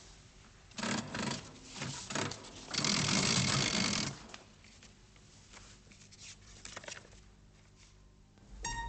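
An old mechanical cash register being rung up: a few clattering strokes of its keys and mechanism, the longest a rattle of over a second, then a few light clicks. Plucked-string music comes in just before the end.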